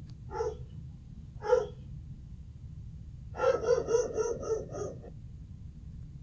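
A time-stretched environmental sound clip from the Urban Sound 8K dataset playing back: two short pitched calls about a second apart, then a quick run of about six pitched yelps lasting over a second.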